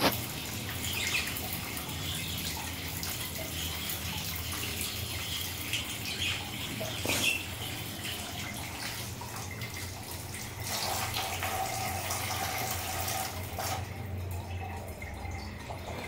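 Water running and splashing steadily, with scattered small clicks and splashes, echoing off a tiled bathroom. The water gets a little louder for a few seconds past the middle.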